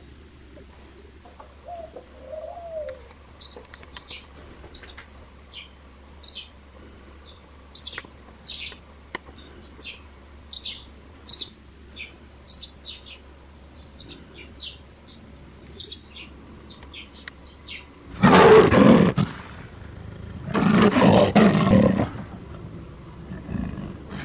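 Small birds chirping in the trees, a long string of short high chirps coming irregularly, once or twice a second. Near the end, two loud rushing bursts about a second long each, a couple of seconds apart, drown everything else.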